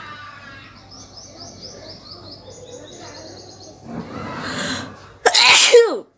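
A woman sneezes once, loudly: a sharp burst whose voice falls in pitch, after a breathy intake of breath about a second before.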